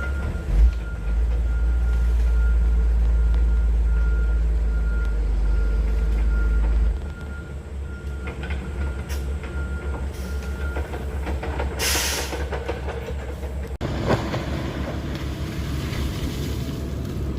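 Heavy diesel earthmoving machine running under load while digging out pond mud, with a steady low rumble. There is a brief hiss about twelve seconds in, and the sound changes abruptly about two seconds later.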